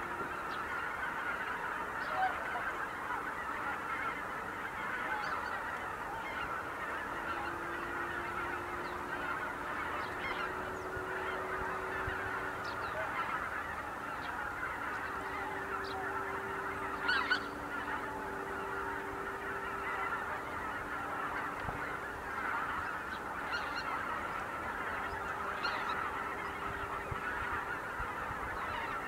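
A large flock of greater white-fronted geese calling in flight: a dense, unbroken chorus of many overlapping honking calls, with a few nearer birds calling louder now and then, one most clearly about two-thirds of the way through.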